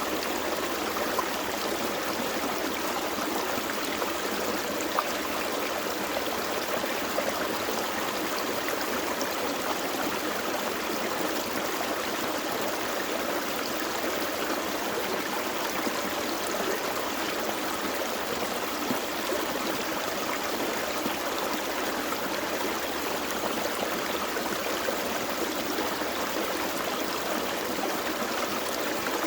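Gentle forest stream flowing steadily over rocks, a constant burble of water with small splashes.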